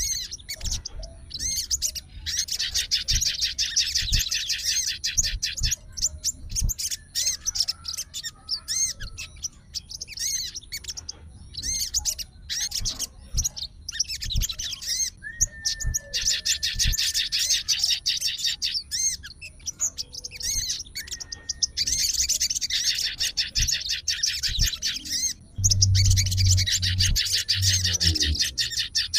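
Sogon (crested jay) calling in long, fast rattling trills of rapidly repeated high notes, several runs of about three seconds each, with scattered single chirps between them. A low rumble joins the last trill near the end.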